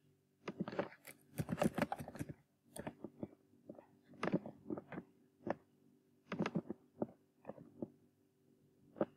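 Computer keyboard typing in short runs of keystrokes, mixed with mouse clicks, over a faint steady low hum.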